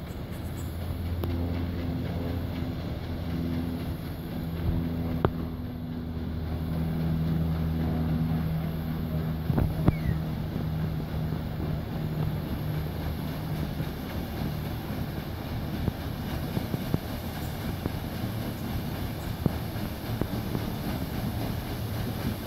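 A paddle steamer going by at low speed. A steady low hum with a few pitches fades after about twelve seconds into an even rushing noise.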